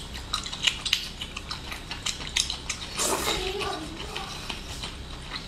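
Close-up mouth sounds of someone chewing cooked octopus: a run of wet smacking and clicking. About three seconds in there is a short voiced murmur.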